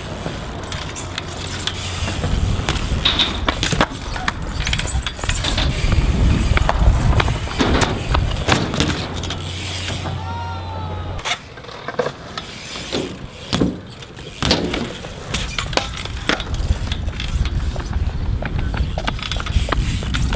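BMX bike tyres rolling and clattering on pavement, with many sharp clicks and knocks, and a low rumble of wind on the microphone that stops about halfway through.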